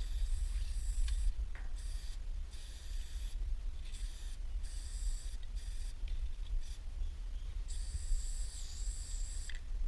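Aerosol spray-paint can hissing in a series of short and longer bursts as paint is sprayed onto a train car's metal side; the longest burst, near the end, lasts about two seconds. A steady low rumble runs underneath.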